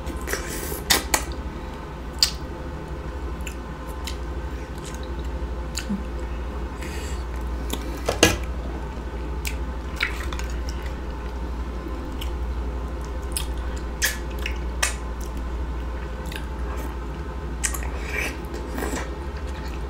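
Close-miked mukbang eating of a butter-sauced seafood boil: wet chewing and lip smacking, with sharp smacks scattered throughout, the loudest about eight seconds in, over a steady low hum.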